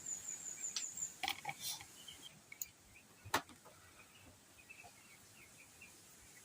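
Quiet outdoor sounds: a high, fast trill in the first second, a few sharp clicks and taps, the loudest about three seconds in, and faint bird chirps.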